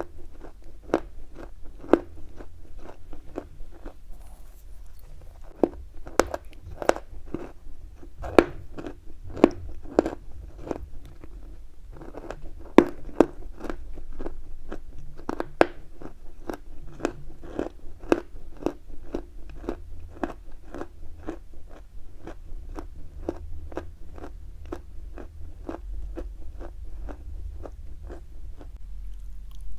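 Chalk being chewed close to the microphone: a steady run of crisp crunches, about two a second.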